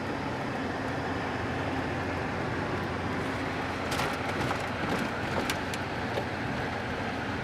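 Steady engine and road noise inside the cab of a 1998 Chevy pickup while it is being driven. A few faint clicks come about four and five and a half seconds in.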